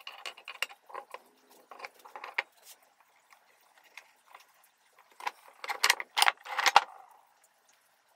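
Glued wooden strips and bar clamps being handled on a workbench: light clicks and taps of wood, then a louder clatter of several sharp knocks between about five and seven seconds in.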